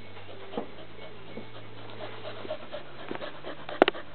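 Staffordshire bull terrier panting softly, with a short sharp click near the end.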